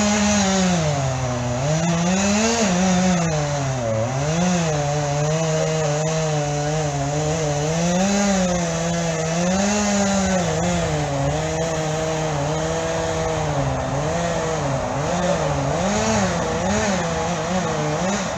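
Chainsaw cutting into a tree, its engine speed rising and falling continuously as the cut loads and frees it, then stopping near the end.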